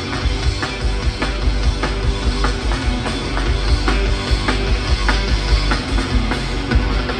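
Rock band playing live through a large outdoor PA, with electric guitars and a steady drum beat.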